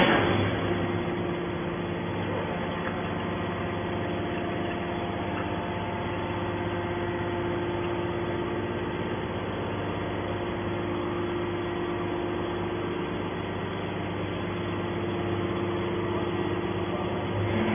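Hydraulic scrap baler running, its electric motor and hydraulic pump giving a steady hum with a low and a mid tone held throughout. There is one sharp knock at the very start.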